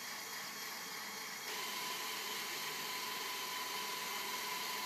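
Electric motors of a Cyclops bomb disposal robot's arm and gripper whirring steadily as they run several motions at once, stepping up a little in level about a second and a half in.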